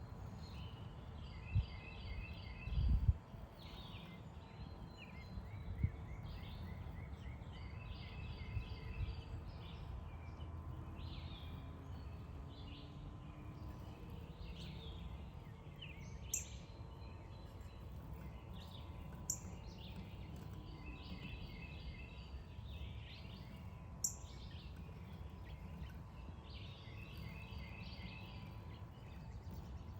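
Songbirds singing in repeated trilled phrases, in several bouts, over a steady low rumble, with a few sharp high chirps in the second half and a few dull thumps in the first seconds.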